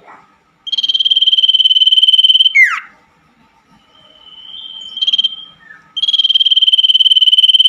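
Common iora (cipoh) singing: two long, high, rapid trills of about two seconds each, the first ending in a quick falling note, with a softer drawn-out rising whistle between them.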